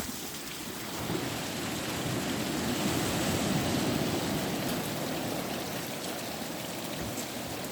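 Steady rushing of water, swelling over the first few seconds and then slowly easing.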